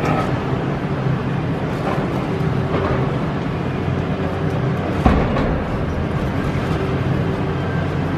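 Demolition excavator's engine and hydraulics running steadily under load as its hydraulic crusher jaws bite into a concrete wall, with one sharp crack of breaking concrete about five seconds in.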